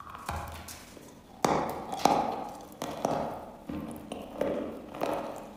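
Close-miked crunching of a piece of chalk coated in golden crumbs being bitten and chewed: a sharp crunch about a second and a half in and another at two seconds, then softer chewing crunches every second or so.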